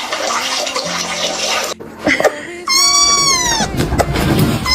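A cat's loud, drawn-out meow, about a second long and rising then falling in pitch, with an identical second meow beginning near the end.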